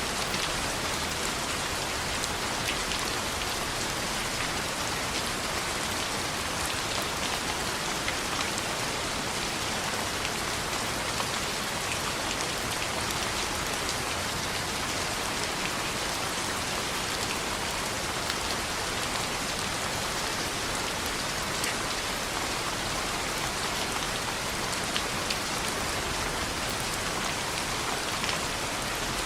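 Steady rain pattering against a window glass, a dense even hiss sprinkled with many small sharp drop ticks.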